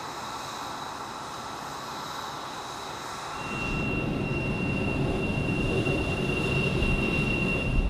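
Turbine noise on a jet flight line: a steady rush with faint whine tones. About three and a half seconds in it swells louder and deeper, and a steady high whine comes in and holds.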